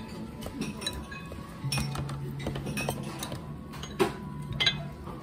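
Tableware clinking on a table: bowls, dishes and utensils knocking lightly, with two sharper clinks about four seconds in.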